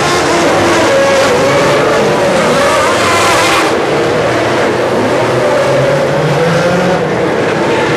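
A field of IndyCars' Honda V8 engines running together as the cars roll off at low speed. Several engine notes overlap, each wavering up and down in pitch as the cars are blipped and revved.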